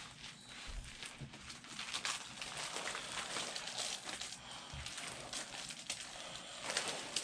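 Packing paper and a bag being handled during unboxing, a soft, continuous rustling and crinkling with a few dull bumps.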